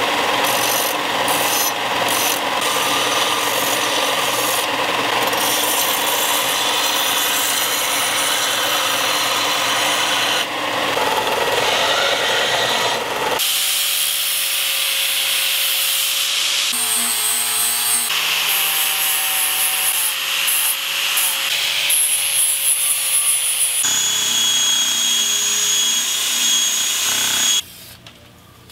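Belt grinder grinding a forged steel spearhead held in tongs, then, about 13 seconds in, an angle grinder whining steadily as it grinds the steel blade. Near the end there is a shorter stretch of a higher-pitched whine that cuts off suddenly.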